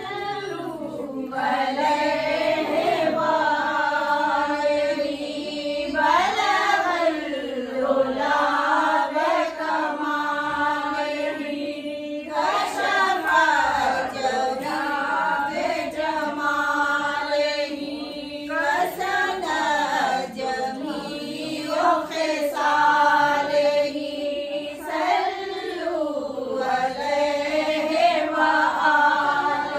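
A group of women chanting devotional verses together in unison, unaccompanied, in long held phrases that rise and fall.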